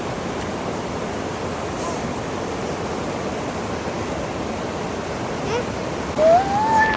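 Steady rushing of river rapids and a waterfall. Near the end a short high call rises and then holds over it.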